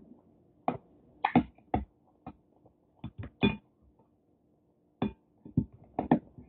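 King crab leg shells cracking and snapping as they are broken apart by hand: a dozen or so sharp, irregular cracks and clicks.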